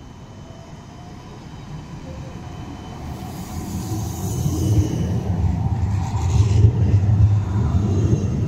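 A tram running on street track, its low rumble of wheels on rail swelling steadily and loudest about two-thirds of the way through, as it draws close and passes.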